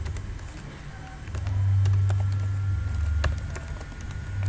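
Computer keyboard keys clicking irregularly as code is typed, over a low hum that swells up about a second and a half in and eases off again near three seconds.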